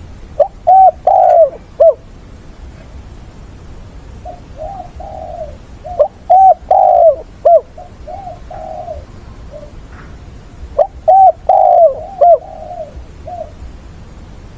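Spotted dove cooing: three loud phrases of a few arched coo notes each, about five seconds apart, with softer coos in between. It is the repeated call of a caged decoy dove.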